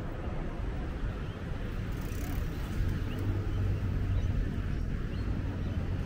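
A motor vehicle's engine hum over steady outdoor background noise, loudest around the middle.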